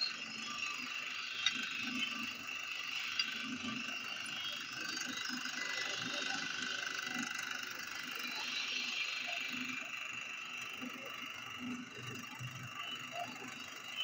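Bench drill press running with its bit cutting steadily into a steel khurpa blank, a continuous grinding of the bit in the metal.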